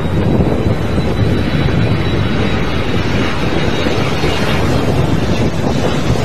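Twin-engine jet airliner's engines running as it lands in strong wind, mixed with heavy wind rumble on the microphone and a faint steady high whine.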